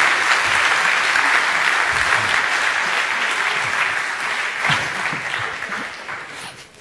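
Audience applauding, a dense steady clapping that thins out and fades away over the last two seconds.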